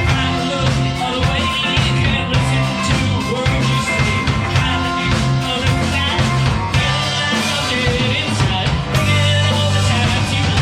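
Live rock band playing: electric guitar, bass and drums at a steady beat, with some singing, recorded from the audience with a room sound.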